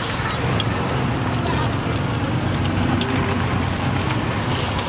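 Hot oil sizzling steadily as battered shrimp and other pieces deep-fry in a pot, with faint scattered crackles. A steady low rumble runs underneath.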